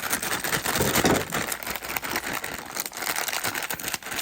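Plastic MRE drink bag holding water and chocolate protein powder being shaken and squeezed to mix it, the plastic crinkling and rustling without a break, a little louder about a second in.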